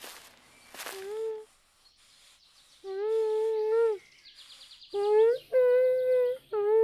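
Muffled humming: a string of held notes, mostly on one pitch, each about half a second to a second long.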